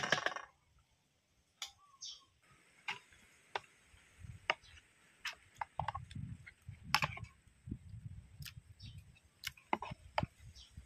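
Metal spoon clicking and scraping against a plastic bowl as raw chicken pieces are stirred in a milky marinade, with low wet squelching of the meat being worked through the middle of the stretch. A short noisy burst comes right at the start.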